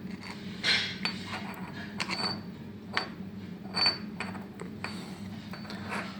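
Light metallic clinks and taps, about six at irregular intervals, two of them ringing briefly, over a steady low hum.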